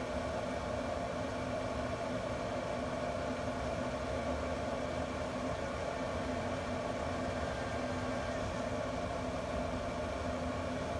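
Pellet grill's combustion fan running with a steady, even hum while the grill holds temperature.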